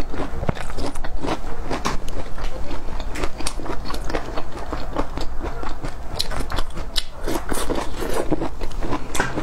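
Biting and chewing of bamboo shoot: a dense, continuous run of crisp crunches close to the microphone.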